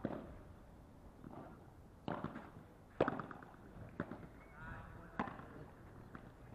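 A padel rally: four sharp pops about a second apart, from rackets striking the ball and the ball bouncing on the court.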